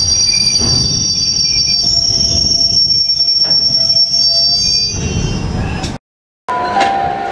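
Freight train wheels squealing on the rails: a steady high-pitched squeal over the rumble of the passing wagons. The sound cuts out for a moment about six seconds in, and a lower squeal follows.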